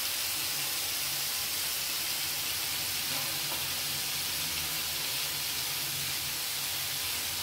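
Steady sizzling of onion and tomato frying in oil in a pan.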